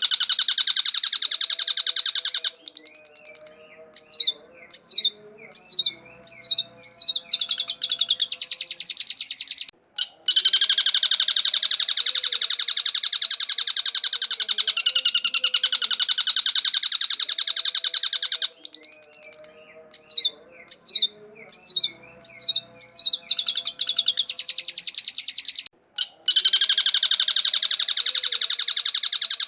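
Long-tailed shrike singing: a fast, continuous, harsh chatter, broken twice by a passage of separate short notes with brief gaps. The same stretch plays twice, as a looped recording.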